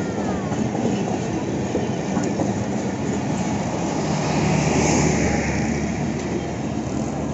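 Pakistan Railways passenger coaches rolling past close by, wheels rumbling and clacking over the rails. The sound swells about two-thirds of the way through as the end power van goes by, then begins to ease.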